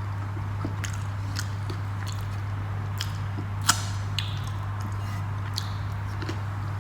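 A person eating rice and dal with pakoda: scattered soft clicks and mouth sounds of chewing, with one sharper click about three and a half seconds in, over a steady low hum.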